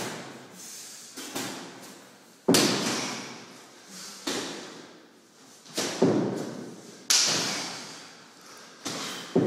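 Heavy punching bag thudding as it is heaved, thrown up and caught against the body: about six dull thuds, a second or more apart, some louder than others. Each one echoes on in a large, bare tiled room.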